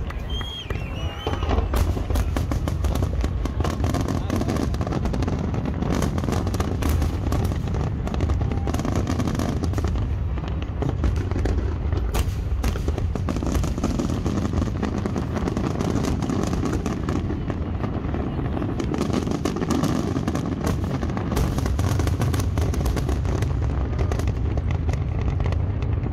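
Aerial fireworks display: many shells bursting and crackling in quick, overlapping succession, with no break, over a deep rumble.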